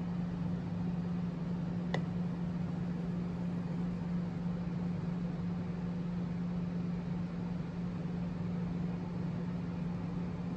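Steady low machine hum with an even hiss, and one faint click about two seconds in.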